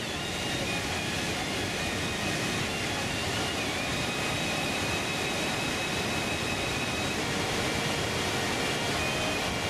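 Hukou Waterfall on the Yellow River: the steady rush of silt-laden water pouring over the falls and churning through the narrow gorge.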